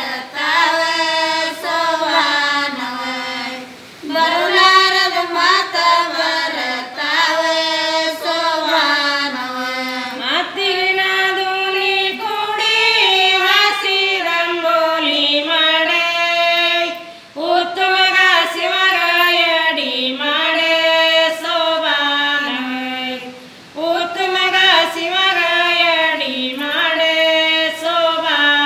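Group of women singing a Kannada sobana pada folk song together without instruments, in long melodic lines with brief pauses between phrases.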